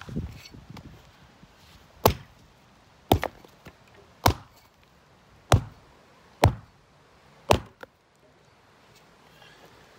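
An axe chopping wood: six sharp, separate blows, roughly one a second, starting about two seconds in.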